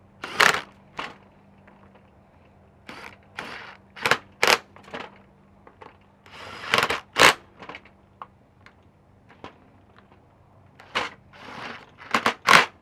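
Makita cordless impact driver hammering in a dozen or so short bursts, some longer than others, as it runs down and snugs the bolts fastening a plastic fan to its viscous clutch hub.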